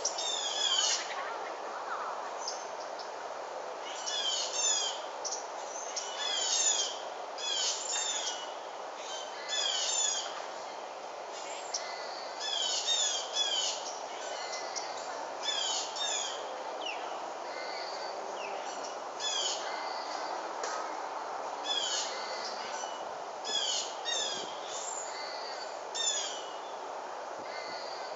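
Songbirds singing: runs of short, quick downward-sliding chirps repeating every second or two, over a steady background hum.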